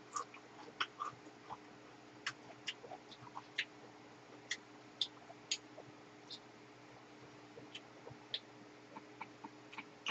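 Quiet eating sounds: irregular soft clicks and taps of chopsticks and a spoon against plates and a frying pan, with small mouth clicks from chewing, about two a second, over a faint steady hum.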